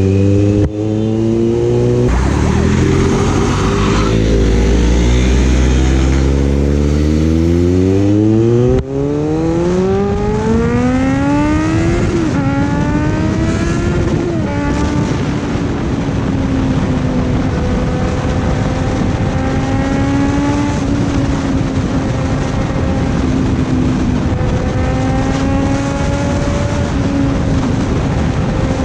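Motorcycle engine at speed. It runs steadily, then about nine seconds in it accelerates hard, rising in pitch through the gears with a break at each shift, and after that it cruises at a steady, slightly wavering pitch over wind rush.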